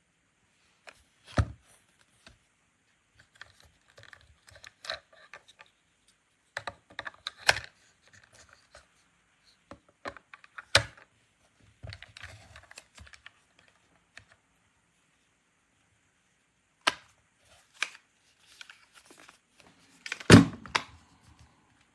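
Scattered handling sounds in a small room: short clicks, rustles and knocks at irregular intervals, with the loudest knock a couple of seconds before the end.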